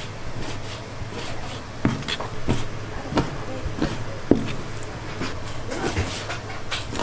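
Kitchen knife slicing raw squid on a plastic cutting board, the blade knocking on the board in an irregular run of chops, over a steady low hum.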